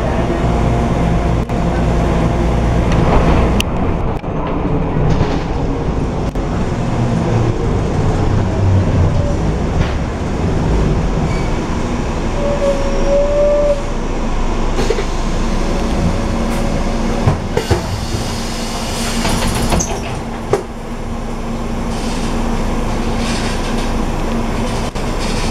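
Inside a Volvo B12M articulated bus on the move: the diesel engine drones under a steady rumble of rattles and creaks from the body and articulation joint. The engine note falls away after a few seconds as the bus slows. A short squeal comes about halfway, with scattered clicks and knocks later on.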